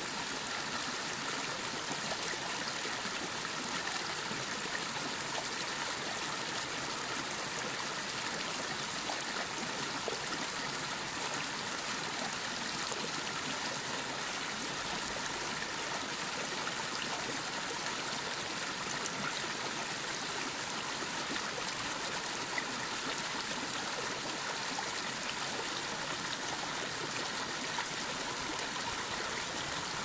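Small mountain stream rushing and splashing over rocks in a steady, unbroken flow.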